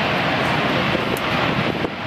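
Aircraft engine noise at an air show, loud and steady, dipping briefly near the end.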